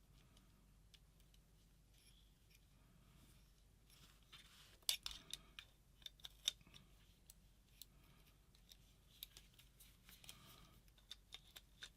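Faint scattered clicks and taps of small parts being handled as a circuit board is fitted into a paintball marker's frame, starting about four seconds in, over near silence.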